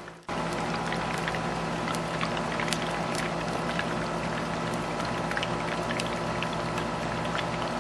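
Stingray wings deep-frying in a pan of hot oil: a steady bubbling sizzle with many small scattered pops and crackles.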